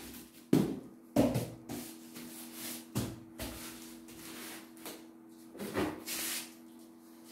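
Clear packing tape being pulled off its roll and pressed onto a plastic-wrapped cardboard box, with crinkling plastic and several knocks of hands against the box.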